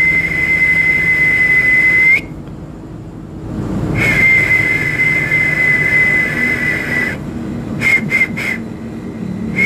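A high whistle held steady on one note for about two seconds, then, after a short break, for about three seconds, followed by three quick short toots.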